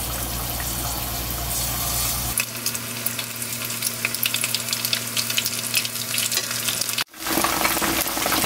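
Batter-coated chicken gizzards deep-frying in hot oil in a wok, sizzling. A steady hiss at first, then from about two seconds in a dense run of sharp crackles; after a brief break near the end the crackling is busier still.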